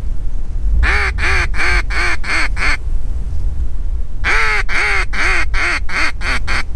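Mallard duck call blown in two descending series of hen quacks, about six notes and then seven, each note falling in pitch. Steady low wind rumble on the microphone underneath.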